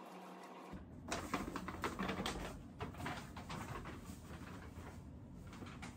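Footsteps and light knocks of things being handled: a dense run of short clicks, loudest between about one and three seconds in, then thinning out.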